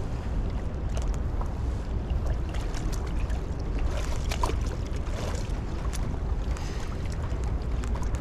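Steady low rumble of wind on the microphone over a hiss of water, with a few faint ticks.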